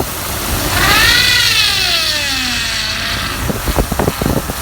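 2006 Dodge Ram 2500 power steering pump whining, the pitch climbing as the engine is given gas about a second in and then sliding down over the next two seconds, over the engine's steady running. It is the noise of steering that is hard to turn despite fresh power steering fluid. Irregular knocks and clicks follow near the end.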